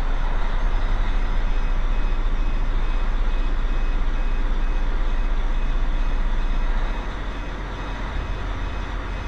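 Twin Detroit Diesel marine engines running steadily, throttled up a little above idle from the emergency control panel after a winter's lay-up. The sound is slightly quieter from about seven seconds in.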